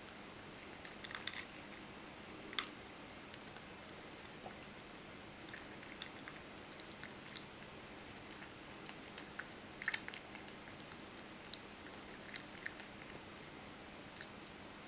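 Ragdoll cat chewing and crunching dry kibble: irregular small crunches, the loudest a little over a second in, at about two and a half seconds, and about ten seconds in.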